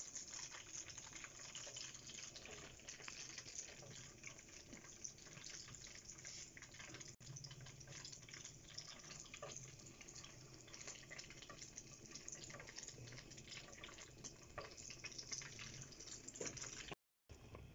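Faint crackling sizzle of chicken pieces frying in hot oil: a steady hiss dotted with many small pops. It cuts out for a moment near the end.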